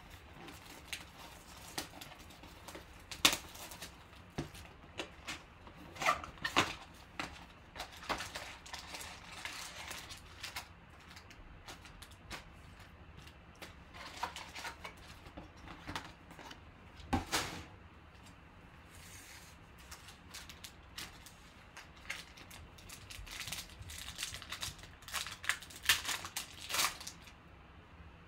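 Trading card box and foil card packs being handled: scattered crinkles, rustles and light clicks of cardboard and plastic wrap, growing denser near the end as a foil pack is crinkled and torn open.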